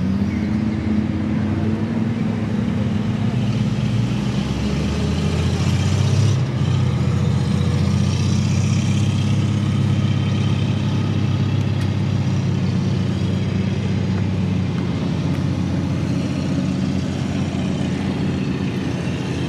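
Engine of a homemade tracked off-road vehicle running steadily, a constant low hum with a slight change in its note about four seconds in.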